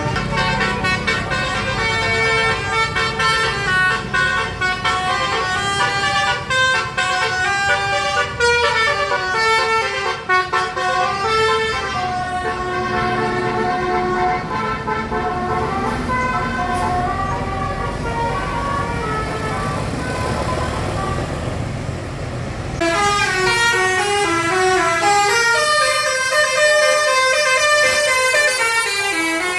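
Indonesian bus 'telolet' multi-tone horn playing a stepping melody over a bus engine running underneath. About 23 seconds in, a louder horn tune with a different pitch pattern starts and plays to the end.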